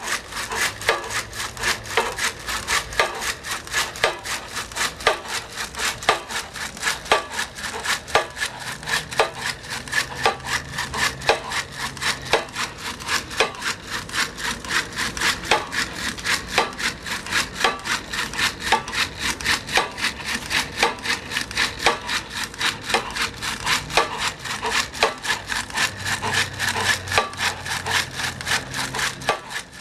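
Hand-squeeze generator flashlights being pumped by the oscillating lever of a two-stage pendulum oscillator, their gear trains and small dynamos whirring in a fast, steady run of clicks as each squeeze spins the generators and lights the LEDs.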